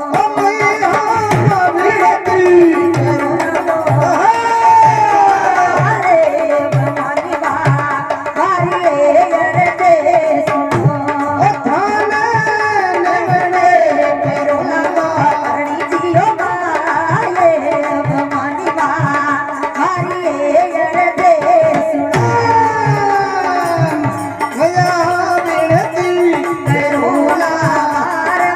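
Rajasthani devotional folk music between sung verses: a hand drum beats a steady rhythm under a melody with sliding pitch.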